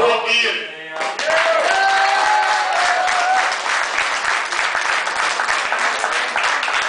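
Singing with acoustic guitar ends about a second in, and the audience breaks into applause, with a few voices calling out over the clapping.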